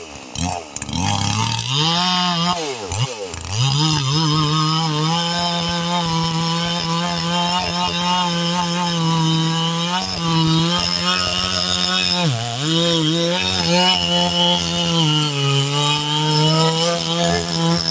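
Big-bore Stihl 044 chainsaw with a 24-inch bar running near full throttle while cutting wood. Its pitch sags briefly about two to three seconds in and again around twelve seconds in. The recording has a muffled, underwater-like tone.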